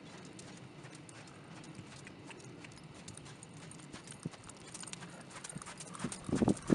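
Hoofbeats of a ridden horse on a sandy arena. They are faint and steady at first, then grow much louder about six seconds in as the horse passes close.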